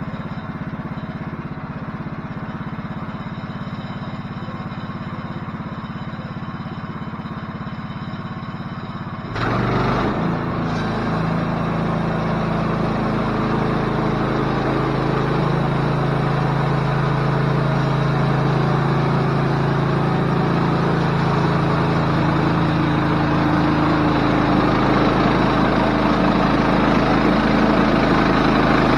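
Portable bandsaw mill's gas engine running steadily. About nine seconds in it suddenly gets louder and stays there, the engine under load with the band blade running as the mill saws along a black walnut log.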